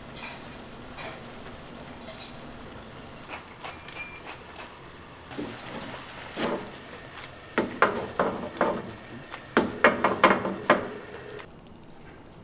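Metal kitchen utensils clinking and knocking against a pan and dishes: a few scattered clinks at first, then a quick run of loud knocks in the second half.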